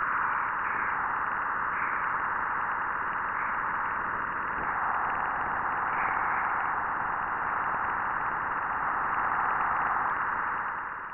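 A steady hiss with gentle swells, presented as the 'sound of Jupiter': radio emissions from the planet recorded by a spacecraft and converted into audio.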